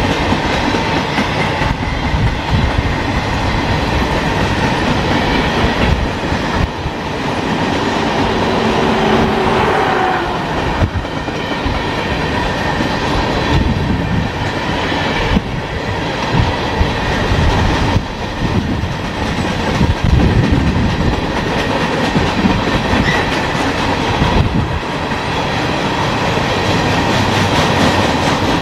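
Freight cars of a long mixed freight train rolling past at close range: a continuous steel-wheel rumble with the clickety-clack of wheels over the rail joints and scattered knocks.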